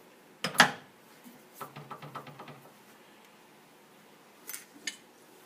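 Hand work on a Sears 101 lathe as it is set up for chuck removal. A single sharp knock comes about half a second in, then a run of light clicks and rattles, and two more short clicks near the end.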